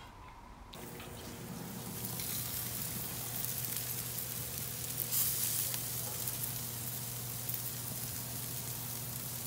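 Marinated chicken pieces sizzling on the grates of a gas barbecue grill, a steady sizzle that comes in about a second in.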